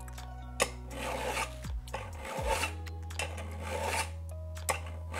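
Hand file stroked across the edge of a steel card scraper made from a handsaw blade and clamped in a vise: several rasping strokes with a couple of sharp clicks. The filing is the finishing step that flattens the edge and takes out the grinder scratches.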